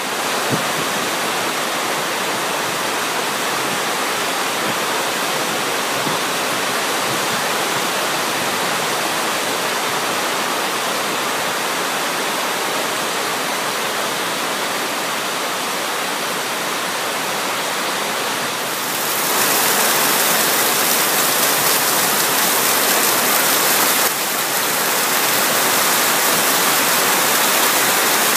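Heavy rain falling on a lake and a covered wooden dock: a steady hiss that turns louder about two-thirds of the way in.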